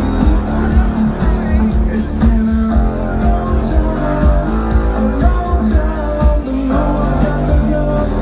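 Electronic dance band playing live through a festival sound system: a held, pulsing bass line under regular drum hits, with a sung vocal line.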